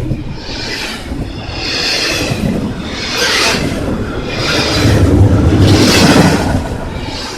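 Container freight train rolling past: a steady rumble of wheels on rail with a rushing sound that swells and fades about every second, loudest about five to six seconds in.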